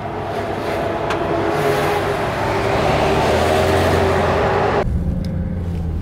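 A motor vehicle's engine and road noise swelling up close for several seconds. About five seconds in it cuts off abruptly to the low, steady hum of a car engine.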